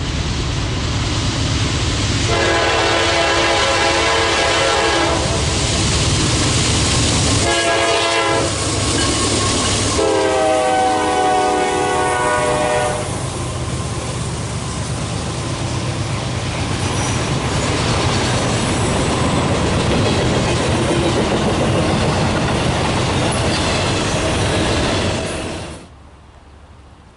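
Freight locomotive's multi-chime air horn sounding a long blast, a short blast and another long blast, over the steady rumble and wheel clatter of the passing train. The train noise drops off suddenly near the end.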